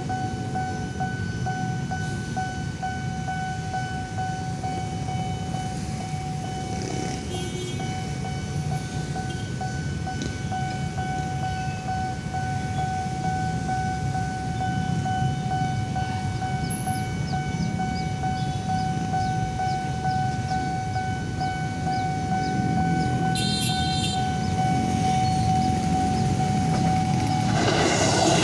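Railway level-crossing warning alarm sounding one steady high tone over the low rumble of waiting road traffic. Near the end the tone cuts off and a loud rush of noise begins as a train comes through the crossing.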